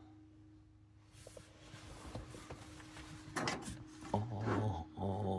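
Rubbing and scraping handling noises with a few knocks, louder and rougher in two short stretches near the end, over a faint steady hum.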